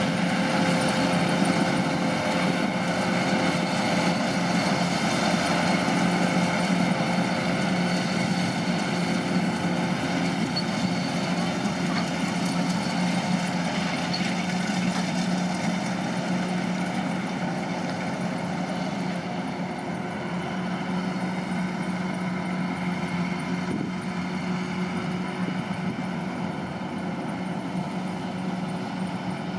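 Kubota DC-105 combine harvester's diesel engine and threshing machinery running steadily with an even hum, growing slightly fainter over the second half.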